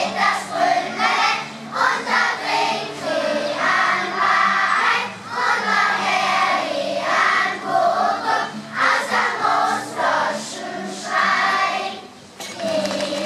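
A children's choir singing an old German-language folk song in unison, with acoustic guitar accompaniment. The singing pauses briefly near the end between phrases.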